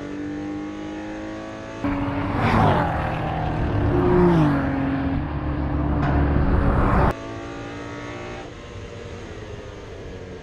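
Racing car engine running hard on track, heard in three edited sections with abrupt cuts between them. The middle section is the loudest, and its engine pitch drops briefly about four seconds in.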